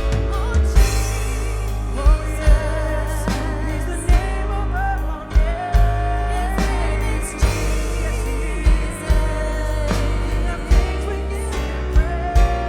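Live worship band playing a song with sung vocals, drums, bass, guitar and piano; the singer holds long notes with vibrato over a steady bass line and regular kick-drum beats.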